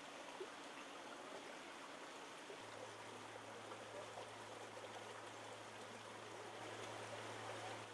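Steady rushing of floodwater flowing across a street, with a low steady hum underneath.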